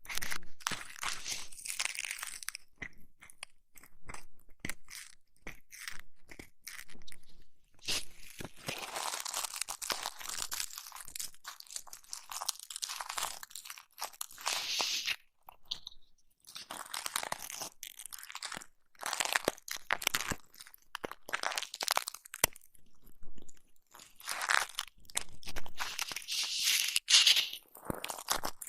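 Close-miked ASMR ear-massage and ear-cleaning sounds: crunchy, crackly rubbing and scratching that comes in irregular swells a second or two long, broken by sharp clicks and brief pauses.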